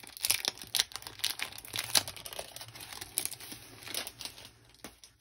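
Product packaging being handled, crinkling and crackling in a quick, irregular run that eases off near the end.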